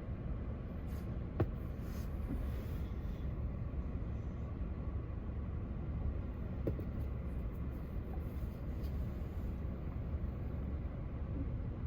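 Steady low background rumble, with a sharp click about a second and a half in and a few fainter ticks later.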